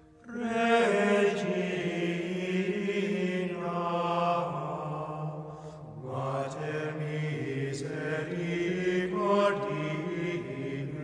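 Slow sacred vocal chant: voices singing long held notes over a low sustained tone, coming in just after the start.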